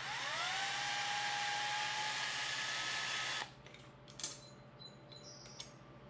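A handheld power drill spins up with a rising whine and runs steadily for about three and a half seconds, then stops suddenly as it backs out a small Phillips screw; a light click follows about four seconds in.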